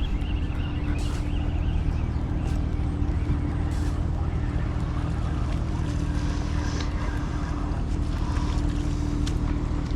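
A boat engine running steadily: a low drone with a constant hum.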